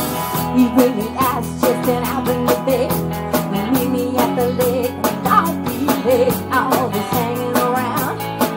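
Live band playing a mid-tempo rock/country song: drum kit keeping a steady beat, acoustic and electric guitars strumming and playing, and a wavering melody line carried on top.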